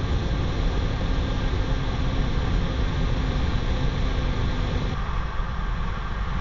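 Steady roar of jet engines and rushing air, heard from a camera on a Blue Angels F/A-18 in close formation flight. The sound thins slightly about five seconds in.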